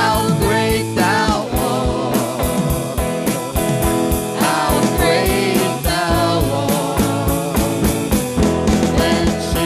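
Worship song with a steady drum beat under sustained chords, and a voice singing over it.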